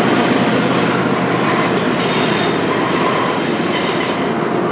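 BNSF intermodal stack train rolling past, its steel wheels running on the rails with a steady rolling noise, rattle and a faint high wheel squeal.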